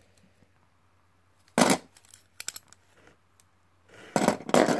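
Hard plastic Beyblade parts clicking and clattering as they are handled and set down on a pile of parts. One sharp clack comes about a second and a half in, a few light ticks follow, and a quick run of clatter comes near the end.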